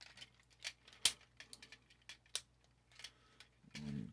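Sharp plastic clicks and snaps from a Transformers Siege Ultra Magnus figure being worked through its transformation, irregular and several in a row, the loudest about a second in. A brief low voice-like sound comes near the end.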